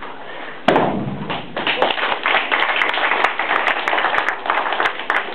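A heavy thud about a second in as a judoka is thrown onto the gym mats, followed by a dense run of quick sharp claps from the onlookers.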